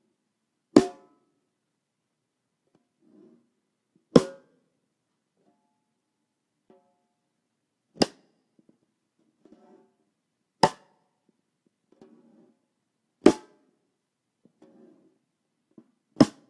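A 14x7 snare drum with a segmented ipe wood shell, struck six times, singly and a few seconds apart. Each hit is sharp and rings out briefly, with faint soft taps between the hits.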